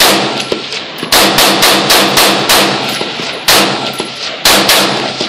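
AR-15 rifle fired in rapid semi-automatic succession: a loud string of about a dozen sharp shots, two to four a second, with short gaps near the middle and toward the end.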